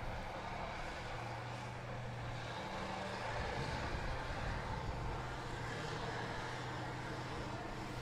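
Tracked armoured vehicle engines running, a steady low drone with no sharp knocks or bangs.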